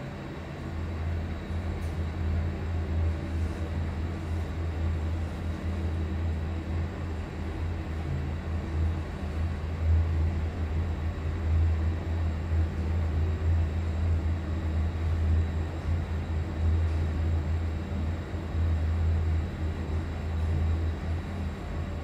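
Otis passenger lift car travelling upward, heard from inside the car: a steady low hum with the rush of the car moving through the shaft. It grows louder about a second in as the car picks up speed and eases slightly near the end as it slows for its floor.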